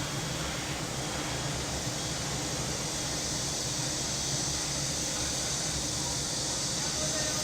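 Summer cicadas in a steady chorus, a continuous high hiss that grows a little stronger near the end, over a low steady hum.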